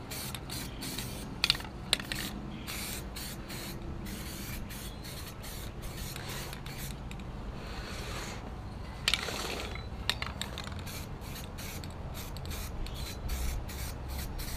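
Aerosol can of self-etching primer spraying in many short, broken bursts of hiss, several a second; the can is nearly empty. A few sharp knocks come through, the loudest about one and a half seconds and nine seconds in.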